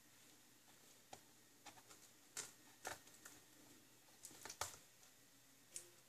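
Faint, scattered crackles and clicks of plastic shrink-wrap being cut with scissors and pulled off a DVD box set, the loudest few in the middle.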